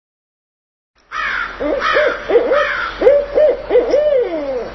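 Owl hooting, starting about a second in: a quick run of short rising-and-falling hoots, ending in a longer hoot that slides down in pitch.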